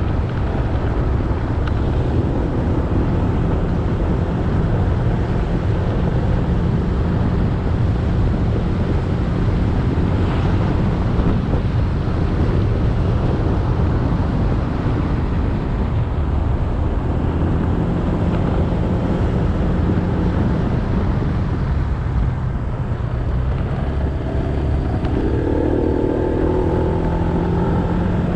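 Motorcycle engine running steadily on the road, with wind and tyre noise on the microphone. Near the end a second, higher-pitched engine sound swells in and fades.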